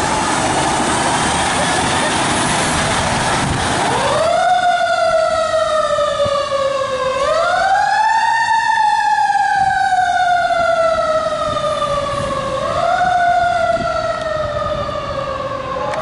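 Santa Monica Fire Department Engine 1's siren sounding as it responds. A few seconds of rough, noisy sound give way about four seconds in to a wailing siren that rises quickly and falls away slowly, about three times.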